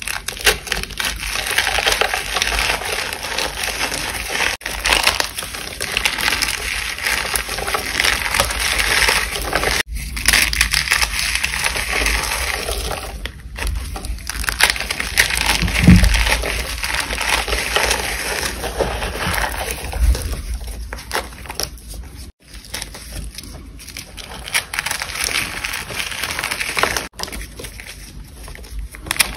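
Reformed gym chalk being crushed and crumbled by hand in water: dense, continuous crunching and crackling that cuts out briefly a few times, with one low thump about halfway through.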